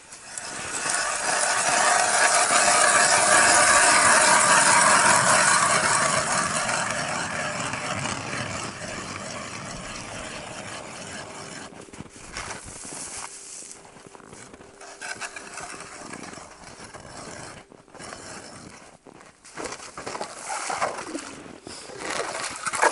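Hand ice auger cranked through lake ice: a loud, steady scraping grind that is strongest in the first several seconds and then dies away. Quieter scrapes and knocks follow.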